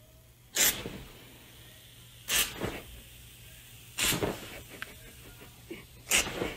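Aerosol can spraying foam in four short bursts, about two seconds apart.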